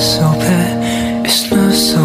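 Background music: a soft, slow tune with held notes and a light beat.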